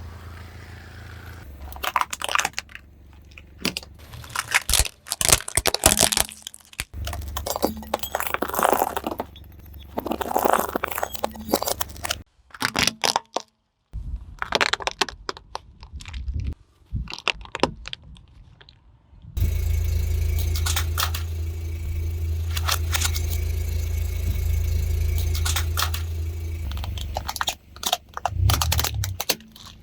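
A car's tyres slowly roll over and crush crunchy objects, making a series of crackles, cracks and crunches over the low hum of the car's engine. There is a brief silent break about halfway through.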